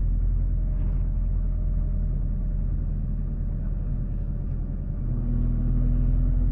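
Engine and road rumble inside a moving road vehicle's cabin. The engine's hum fades in the middle and comes back louder about five seconds in.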